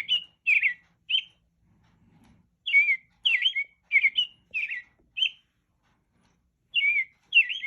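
American robin song, a recording played from a singing bird wall clock's built-in speaker for the 1 o'clock hour: clusters of short whistled notes that slide up and down, repeated in groups with pauses of about a second between them.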